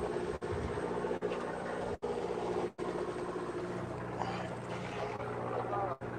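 Fishing boat's engine running steadily, a low even hum.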